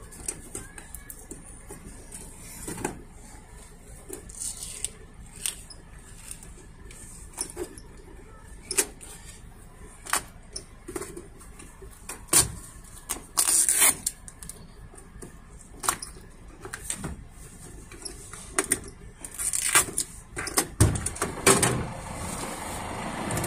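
Scattered, irregular clicks, taps and light knocks of handling inside a truck cab, growing denser with some rustling near the end.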